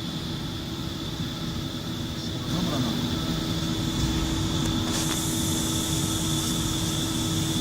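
Steady workshop machinery hum with a constant whine, getting louder about two and a half seconds in, with a hiss joining about halfway through.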